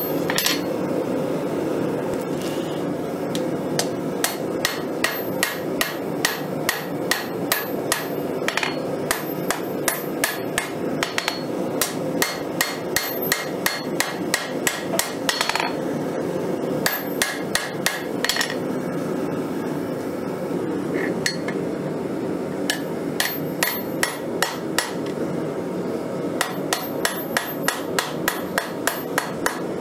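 Hand hammer striking red-hot file steel on an anvil, forging a blade, in quick runs of blows separated by short pauses. A steady rushing noise runs underneath.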